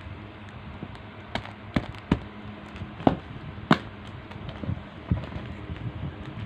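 A parcel being handled and opened: a series of sharp taps and knocks, about seven in four seconds, over a steady low hum.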